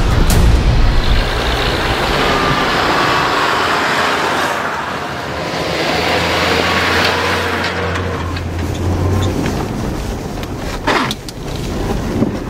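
Toyota Land Cruiser 80 off-roader driving along a forest track, its engine running under a steady rush of noise, with a low engine hum coming through more strongly in the middle.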